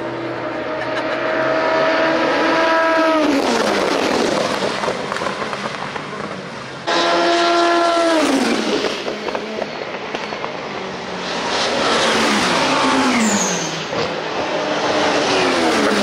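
IMSA race cars at speed passing one after another, each engine note falling in pitch as it goes by, four or so passes in all.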